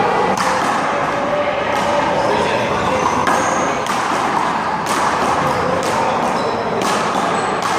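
Handball rally: sharp smacks of a small rubber handball being struck by hand and hitting the wall, about one every one and a half to two seconds, over background chatter.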